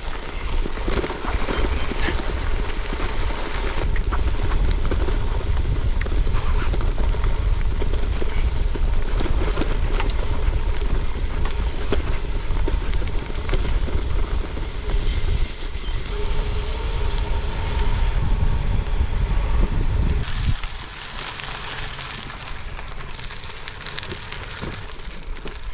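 Wind buffeting the microphone and a bike rattling and clattering over rough trail ground while riding, easing off about twenty seconds in.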